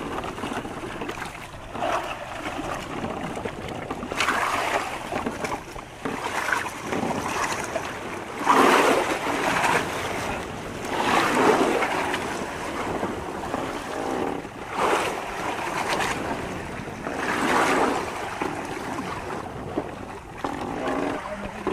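Sea water washing and splashing around a bamboo fishing raft as a wet net is hauled in by hand, rising in louder surges every few seconds.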